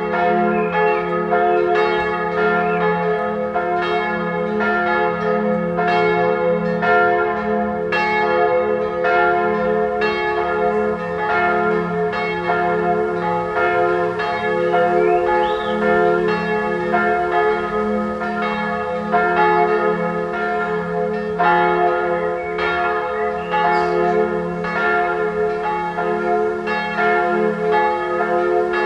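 Full peal of three church bells: two 1979 Perner bronze bells tuned f¹ and a-flat¹, a minor third apart, with a small old b² bell above them as a cymbal, striking in quick overlapping strokes over a steady low hum.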